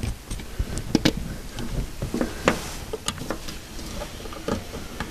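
Scattered small clicks and knocks of hands fitting the ignition king lead, the high-tension lead from coil to distributor, with a few sharper clicks spread irregularly through.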